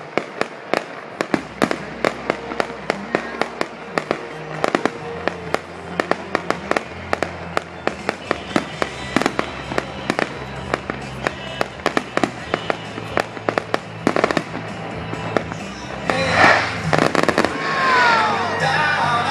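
Aerial fireworks display: a rapid string of bangs and crackles, several a second, getting louder with dense crackling near the end.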